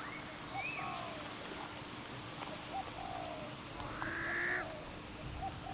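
Birds calling: a series of short chirps and slurred whistled notes, with a louder, harsher call about four seconds in.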